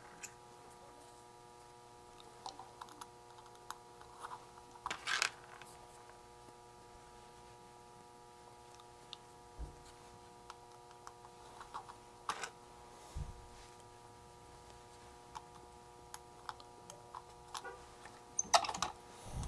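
Scattered small clicks, taps and rustles of electronic kit parts and hand tools being handled on a workbench, with a louder cluster about five seconds in and another near the end.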